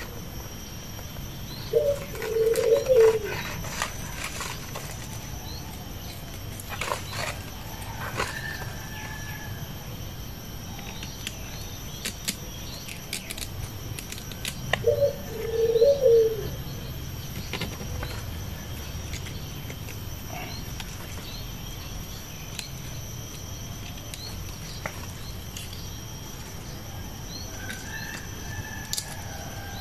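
A dove coos twice, about two seconds in and again about fifteen seconds in, over a steady high insect drone and a couple of short bird chirps. Scattered light clicks come from hands trimming a small coconut palm.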